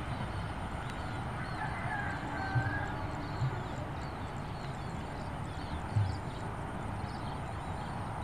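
Outdoor morning ambience: small birds chirping over and over in short, high calls over a low, steady rumble, with a few dull low thumps.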